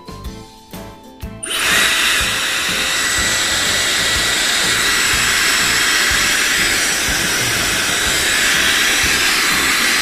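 Background music with a light beat, then about one and a half seconds in a Dyson Supersonic hair dryer switches on and blows loudly and steadily, with thin high whine tones over the rush of air.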